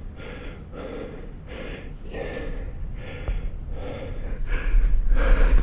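A tree climber breathing hard close to a head-mounted microphone, with steady in-and-out breaths about once a second. A low rumble grows louder near the end.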